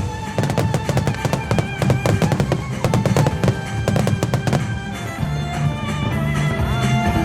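A wide starmine firework barrage: many shells bursting in rapid succession over music played with the display. The bursts thin out about five seconds in, leaving the music more to the fore.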